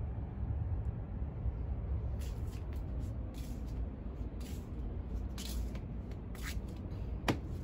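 Footsteps on wet decking boards, soft squishy steps about once a second, over a steady low rumble. A single sharp click near the end.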